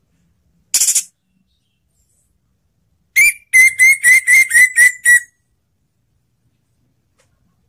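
Orange-headed thrush calling: a short harsh note about a second in, then a run of eight loud, sharp whistled notes at about four a second near the middle.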